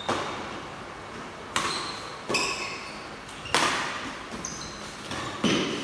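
Four sharp knocks, each with a brief high ringing after it, coming irregularly about a second or two apart.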